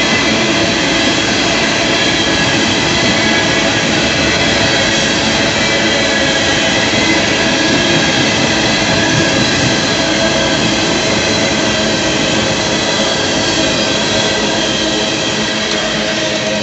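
Empty coal cars of a freight train rolling past close by: a loud, steady roar of steel wheels on rail, with steady high-pitched wheel squeal over it.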